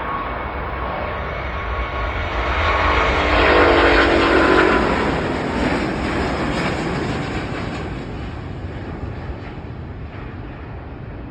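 Airbus A350's Rolls-Royce Trent XWB jet engines at takeoff power going past close by: the roar swells to a peak about four seconds in, its tones dropping in pitch as it passes, then fades steadily as the airliner climbs away.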